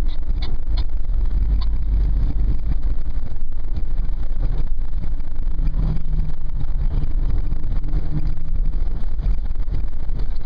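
Toyota FJ Cruiser's 4.0-litre V6 and tyres heard from inside the cabin while driving an off-road trail: a steady low rumble, with the engine note swelling a little past halfway.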